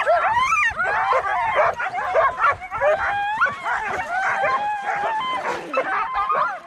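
A team of harnessed sled dogs barking and yelping all at once, a loud, unbroken chorus of many overlapping rising and falling calls. It is the clamour of a hooked-up team straining to be let go.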